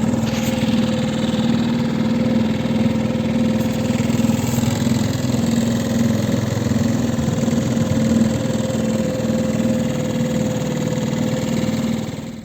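Mercury 3.5 hp outboard motor running steadily; it is a new engine still being run in.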